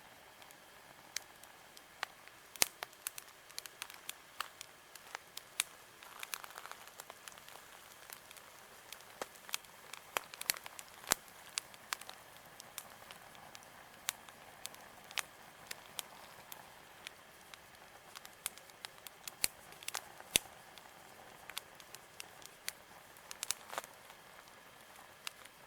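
Campfire crackling: irregular sharp pops and snaps, a few louder than the rest, over a faint steady hiss.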